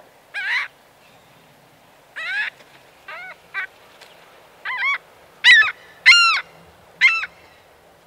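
Laughing gull calling: a series of about nine short notes, each rising then falling in pitch, spaced unevenly and growing louder in the second half.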